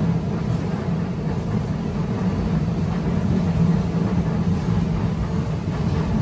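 Steady low rumble of a Tampa streetcar running along the street, heard from inside the wooden passenger car.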